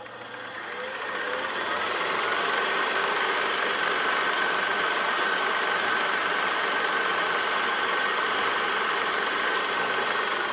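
A machine or engine running steadily with a rattling texture and a faint high whine; it fades in over about the first two seconds.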